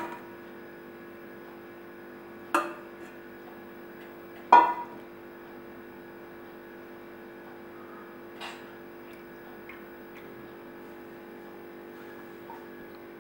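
Steady hum with a few light knocks of a stainless conical strainer against a glass bowl as brown sauce drains through it. The loudest knock comes about four and a half seconds in and rings briefly.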